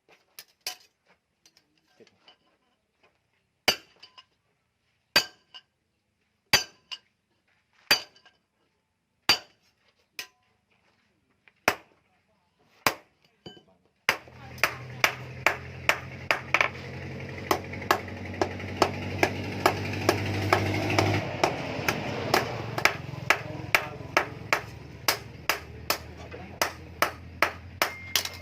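Hammer blows on hot bearing steel at the anvil, each strike ringing, about one every second and a half. About halfway through a steady machine drone starts, and faster strikes, about two a second, keep on over it.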